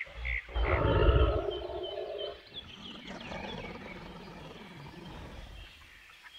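Recorded dinosaur roar played by an animatronic dinosaur model: a few short high chirps, then a loud growling roar about a second in that trails off into fainter growls, with near quiet near the end.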